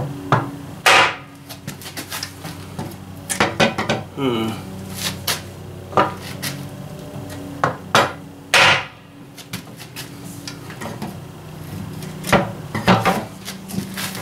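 Irregular hammer blows on a block of 2x4 resting on an ABS pipe seal driver, knocking a new seal into a Ford 2N tractor's brake drum hub. Some blows are much heavier than others and ring briefly.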